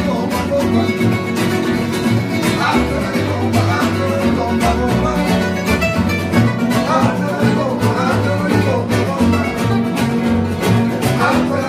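Gypsy jazz ensemble playing: acoustic guitars strumming a steady, even rhythm under a lead guitar line, with a plucked double bass.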